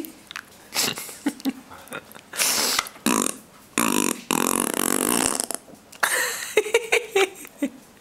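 A person making silly mouth noises, fart-like raspberries and burp-like sounds, in a string of short bursts with a longer buzzing raspberry near the middle.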